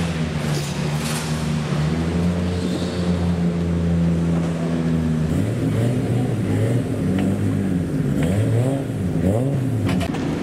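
Classic car engine running steadily at idle, then revved in several blips about halfway through, its pitch rising and falling with each one.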